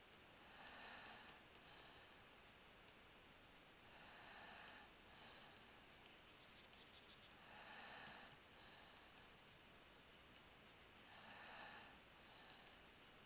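Faint breathing close to a headset microphone: a soft in-and-out breath about every three and a half seconds, over near silence.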